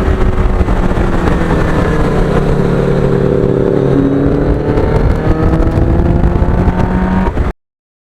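1989 Kawasaki GPX750R's inline-four engine running at road speed, its pitch drifting slowly up and down, with heavy wind rumble on the microphone. It cuts off suddenly near the end.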